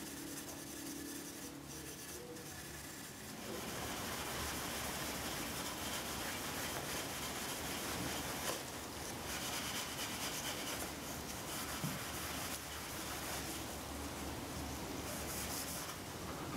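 Pad of 0000 steel wool rubbing over the cured finish on a wooden box, smoothing it and knocking off dust nibs: a steady scratchy hiss that rises and falls with the strokes and gets louder about three and a half seconds in.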